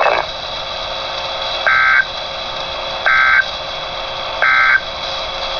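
Emergency Alert System end-of-message data bursts: three short, identical digital warbles about a second apart, sent over the radio's steady background hiss to mark the end of the alert.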